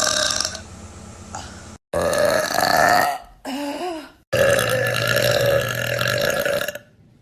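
A young woman's loud burps, several in a row, with abrupt cuts between them; the last is a long, drawn-out burp of about two seconds that fades out near the end.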